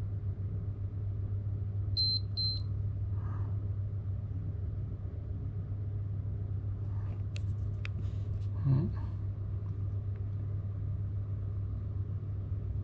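Two short high electronic beeps about half a second apart from the control panel of a Shimano Plays 3000 electric fishing reel, over a steady low hum.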